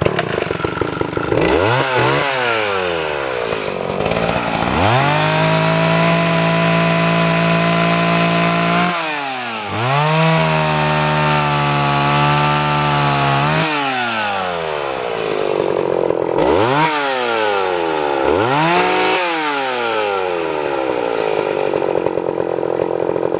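Vintage Homelite 360 two-stroke chainsaw engine running and being revved: quick throttle blips up and down, then twice held at a steady high rev for several seconds, then more short revs.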